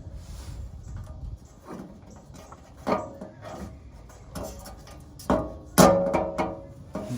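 A few sharp metal clanks and knocks from tools and bolted parts being handled during reassembly after an oil change, each ringing briefly; the loudest comes near the end.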